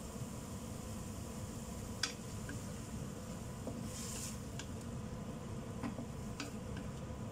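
Wooden spatula stirring cauliflower florets in a stainless steel wok: a sharp tap about two seconds in, a short hiss of sizzling about four seconds in, and a few light clicks of the spatula against the pan after that, over a steady low hum.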